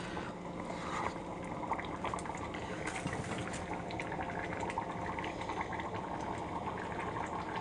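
Thick red kidney bean (rajma) curry bubbling in a pot, with many small pops and spatters. It is frying down in the oil just stirred into it.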